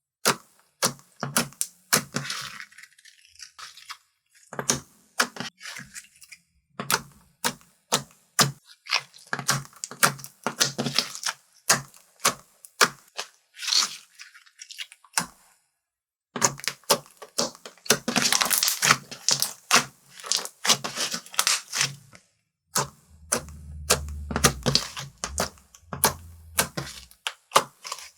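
Slime being kneaded and stretched by hand, giving rapid, irregular clicks and crackles as trapped air pockets pop, with a few brief silent gaps.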